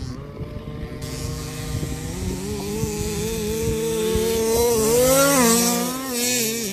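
Small two-stroke engine of a 1/5-scale petrol RC car, 30.5cc, running hard. Its pitch climbs as the car speeds up, is loudest about five seconds in, then drops as it passes by.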